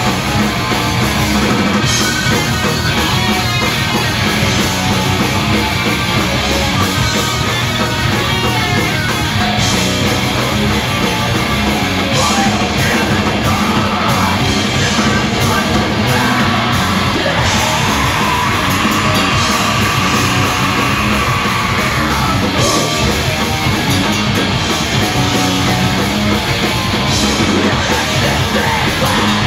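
Punk rock band playing live and loud: distorted electric guitars and pounding drums in a dense, unbroken wall of sound, with shouted vocals.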